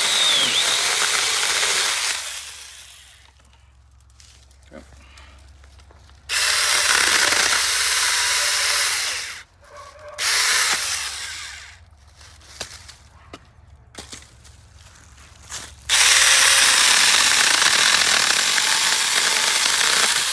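Saker 20-volt cordless electric mini chainsaw cutting through a small tree trunk, running in several bursts with quiet pauses in between: a run at the start that dies away, another about six seconds in, a short one near ten seconds, and a longer cut from about sixteen seconds on.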